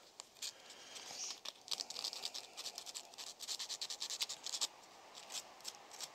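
Disc brake pad rubbed back and forth on fine sandpaper: a run of short, faint scratching strokes, a few a second, easing off near the end. The pad's edges are being chamfered to cure brake squeal.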